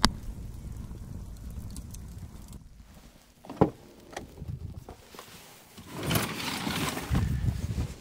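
Small wood campfire crackling with a sharp pop at the start. After a pause, a knock, a few clicks and a rising rustling clatter as gear is handled in a pickup truck's back seat.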